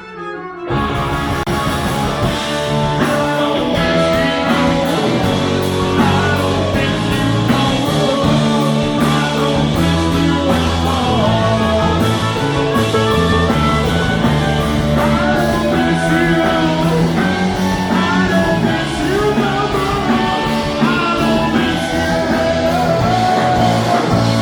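A live rock band playing a song, dropping out for a moment at the very start and then coming back in with the full band.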